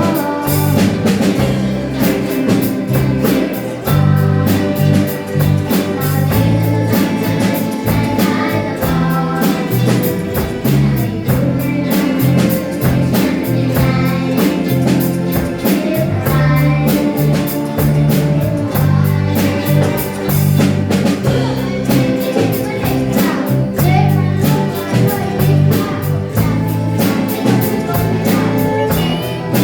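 A pop song with a band backing of drum kit, bass and guitar, keeping a steady beat.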